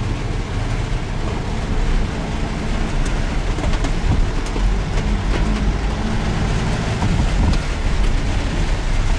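A small motor vehicle's engine running steadily as it drives through floodwater in heavy rain, with the hiss of rain and water splashing around it and scattered small ticks and splashes.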